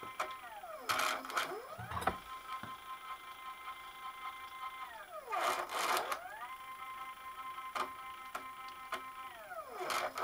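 Stepper motor driving the Alba 1A shaper's X-axis table back and forth: a whine of several steady tones that drops in pitch as the table slows, rattles briefly as it reverses, then climbs back to pitch, three times about four and a half seconds apart. The three-wire motor runs in full-step mode at its torque limit, and the owner says it loses steps while the machine is cold.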